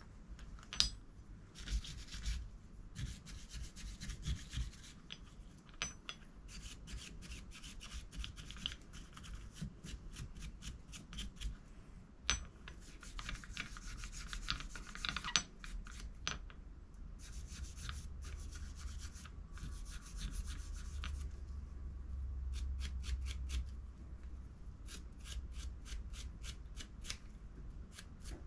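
Small steel rifle part being scrubbed by hand. It makes runs of quick rasping strokes, several a second, with short pauses between the runs, as old gunk is cleaned off.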